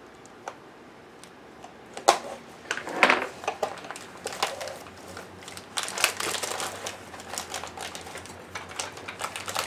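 Hard plastic clicking and knocking with crinkling of plastic wrapping as a food processor's accessory storage case is opened and its blades and discs handled. Irregular clicks and rustles start about two seconds in.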